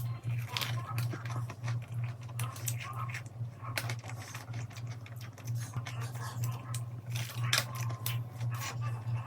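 Scattered light clicks and taps of utensils and eating over background music with a steady, evenly pulsing low bass.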